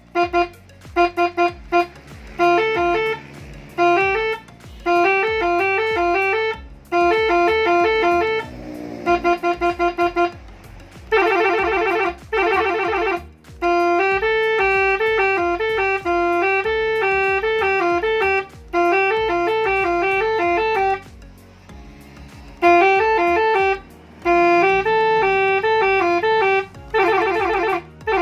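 Three-trumpet telolet air horn playing its preset tunes: quick melodic runs of a few notes played in turns, in loud bursts with short breaks between. The tune pattern changes from burst to burst.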